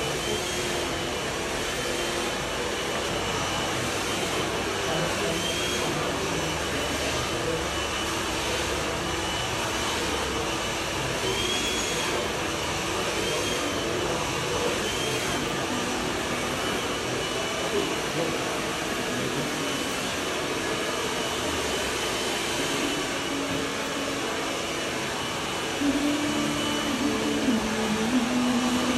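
Hair dryer running steadily, a constant whoosh of air and motor, with a voice coming in near the end.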